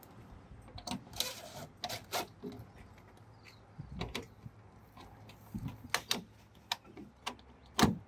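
Scattered clicks and knocks of a Marks 9900 stainless steel panic bar being handled and positioned against a door, with the loudest knock near the end.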